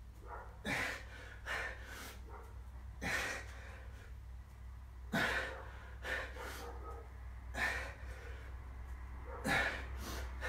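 A man breathing hard through press-ups: a sharp, forceful exhale every second or two in time with the reps, over a steady low hum.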